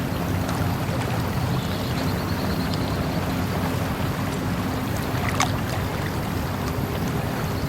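Flowing water in a steady low rush, with a few faint high ticks and a short faint trill about two seconds in.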